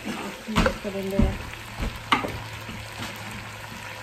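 Metal spoon stirring beef in a large coated pot, knocking and scraping against the pot about six times in the first three seconds, over the steady sizzle of the meat cooking.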